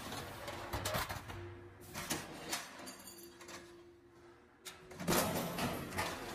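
Light gauge steel roll forming machine running with a steady hum, with several sharp metal clacks as formed steel stud profiles are pushed out onto the outfeed table. About five seconds in, a louder, hissing machine sound takes over.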